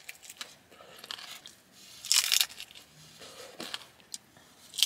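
Crunchy bites into a fried hard-shell taco and chewing: a string of sharp crackling crunches, the biggest about two seconds in and another near the end, with quieter chewing between.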